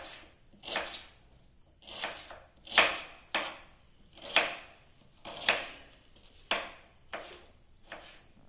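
Kitchen knife slicing an onion on a wooden chopping board: about a dozen separate cuts at an uneven pace, roughly one a second, each a short crisp knock of the blade on the board.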